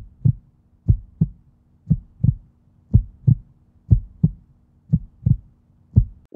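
Heartbeat sound effect: low double thumps (lub-dub), about one pair a second, seven times, over a faint steady hum.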